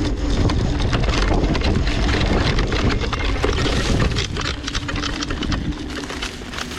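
Off-road vehicle driving over rough ground: engine running with a steady hum under dense rushing and rattling noise, easing off after about four seconds.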